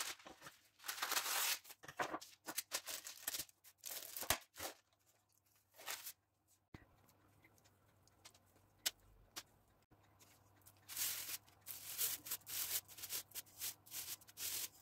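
Spatula scraping thick cake batter out of a mixing bowl and spreading it in a cake tin, in short clusters of soft scraping strokes, with a quiet stretch in the middle.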